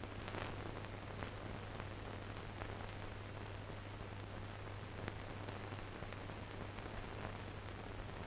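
Steady rain falling, an even hiss with a few faint ticks of drops and a low hum underneath.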